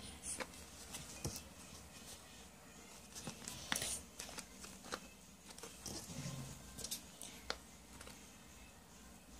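Faint scattered clicks and taps of a plastic squeeze bottle of white glue being handled and squeezed by hand, with one sharper click about a third of the way in.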